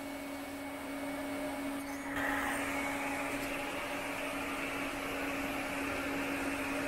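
TIG welder at work on the throttle butterfly screws: a steady hum throughout, and about two seconds in a steady hiss starts and holds.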